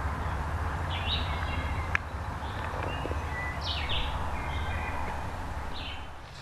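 Small songbirds calling in short chirps a few times, over a steady low rumble, with a single sharp click about two seconds in.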